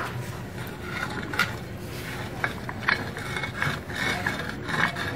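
Irregular metal clicks and scraping as a donkey pump's pulley wheel is turned by hand to work the crank set (piston) out of its cylinder.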